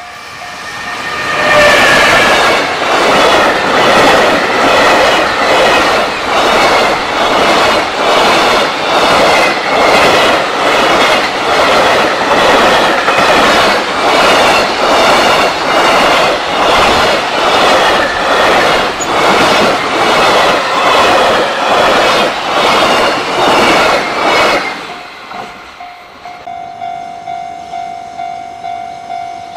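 A JR Freight container train passes close by: an electric locomotive and a long string of container wagons, the wheels clacking over the rail joints in a steady, even rhythm for over twenty seconds before the sound cuts off. A level-crossing warning bell rings in a regular beat before the train arrives and again after the cut.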